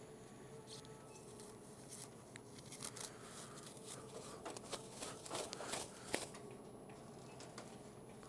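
Thin plastic produce bag crinkling and crackling as it is pulled open and a tray of meat slipped inside, densest a little past halfway, with one sharp snap.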